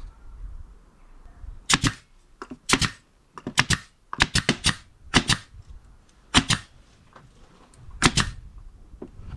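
Cordless nail gun firing nails through a wooden strip into a chipboard panel: about ten sharp shots at irregular spacing, several in quick succession around the middle.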